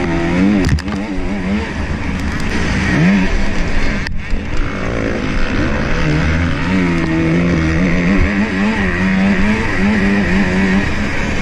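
Motocross bike engine revving up and down through the gears at race pace, heard from the rider's helmet. A few sharp knocks cut through in the first second and again about four seconds in.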